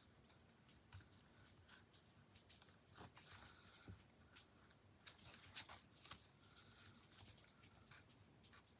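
Near silence with faint rustles and light clicks of paper and card being handled, as a paper strap is worked through a die-cut belt buckle.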